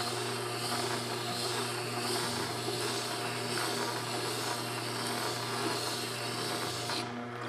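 Tormek T-8 wet grinder running with a steady motor hum while a Hock O-1 steel plane blade is ground on its turning water-cooled stone under light finger pressure, the scraping of steel on stone swelling and fading about once a second. These are the final passes on the bevel near 25 degrees; the grinding stops just before the end while the motor keeps humming.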